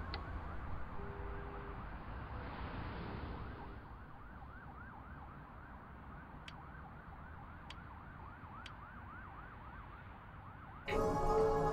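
Distant emergency-vehicle siren yelping, rising and falling a couple of times a second, over a low rumble of city traffic. Three faint clicks come in the middle, and music starts near the end.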